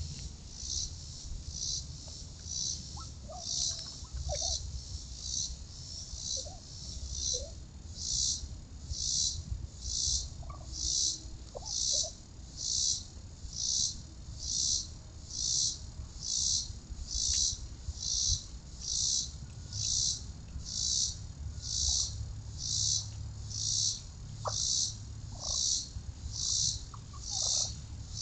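Insects calling in a steady chorus, a high buzzing pulse repeating about once a second. A few faint short calls sound in the background.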